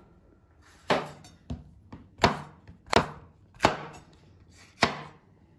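Kitchen knife cutting peppers into thick pieces on a cutting board: about six sharp chops, unevenly spaced roughly half a second to a second apart.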